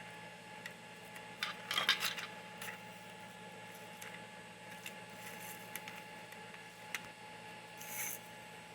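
Light clicks and scrapes of small hard objects being handled, over a steady hum. A cluster of clicks comes about one and a half to two seconds in, and a short scrape near the end.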